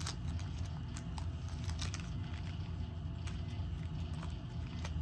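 Scattered light clicks and rattles of small beads and bead packets being handled, over a steady low hum.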